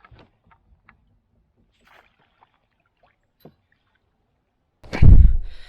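A few faint clicks, then a sudden loud thump about five seconds in that dies away over about half a second.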